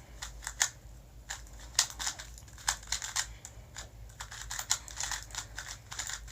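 A YJ magnetic 2x2 speedcube being turned fast during a timed speedsolve: quick, irregular plastic clicks, several a second, as its layers turn and snap into place.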